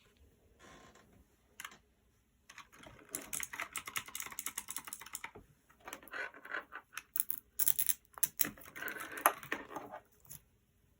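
One Up G300 mechanical keyboard with clicky Outemu blue switches being typed on: quick runs of keystrokes from about two and a half seconds in until near the end.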